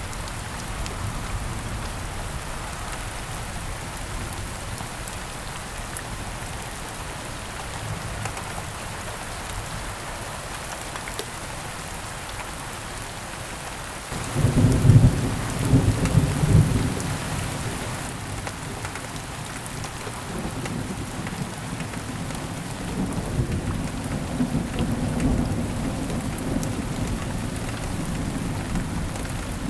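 Steady rain falling throughout. About halfway through, a sudden loud thunderclap rumbles for a few seconds, and a softer rolling rumble of thunder follows later.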